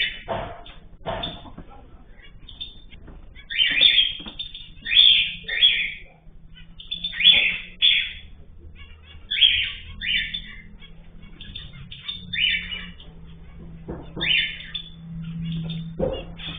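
Pet cage birds calling, with short, loud, rasping chirps repeated every second or two and softer chirping between them. A faint steady low hum runs underneath.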